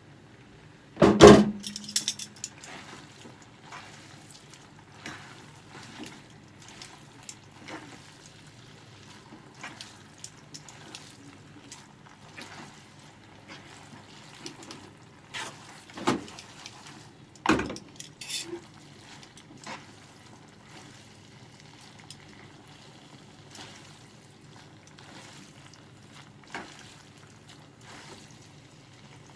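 Tongs and a wooden spatula scraping and clicking against a nonstick frying pan as spaghetti is tossed, over a steady low frying sizzle. A loud knock comes about a second in, and two more knocks come near the middle.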